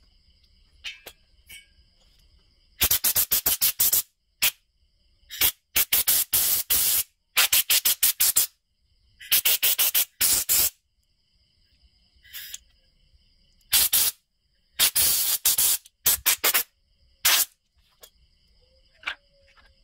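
Compressed-air blow gun firing in short blasts and quick trains of pulses, blowing dirt out of a chainsaw's carburetor and carburetor compartment during a carburetor cleaning.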